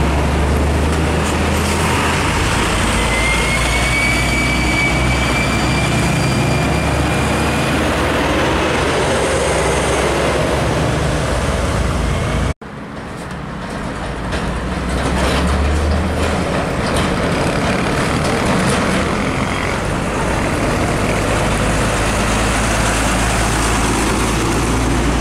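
Heavy diesel trucks running close by in traffic: a steady low engine rumble with road and tyre noise from a Hino 500 container truck pulling away. About halfway through, the sound cuts out abruptly and fades back in as more traffic noise from container trucks on the road.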